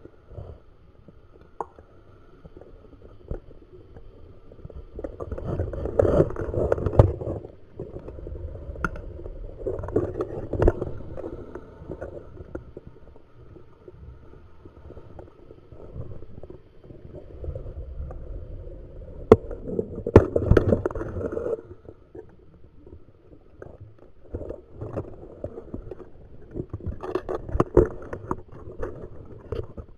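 A scuba diver breathing through a regulator underwater: the exhaled bubbles gurgle out in four bursts a few seconds apart, with quieter inhalations between.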